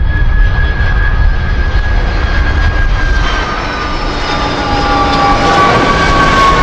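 Airbus A300-600ST Beluga freighter on landing approach, its two General Electric CF6 turbofans running with a deep rumble and a high engine whine that slowly falls in pitch as the aircraft closes in. The sound grows louder near the end.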